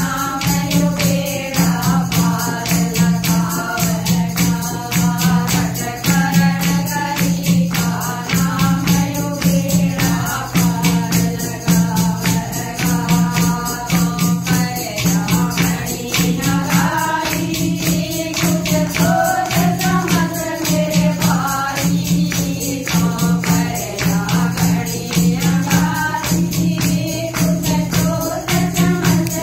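A group of women singing a Haryanvi bhajan together, with hand-clapping, a clay pot played as a drum and jingling percussion keeping a steady, even beat.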